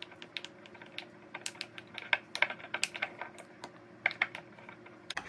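A metal spoon stirring thick natural peanut butter in a glass jar: quick, irregular clicks and scrapes as it knocks against the glass, several a second.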